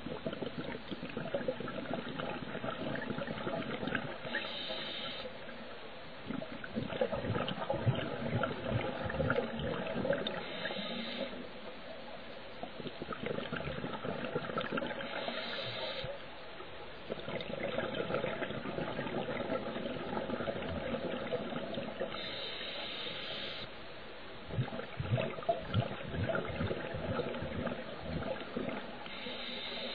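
Scuba diver breathing through a regulator underwater: a short hiss of inhalation about every six or seven seconds, each followed by several seconds of bubbling exhalation.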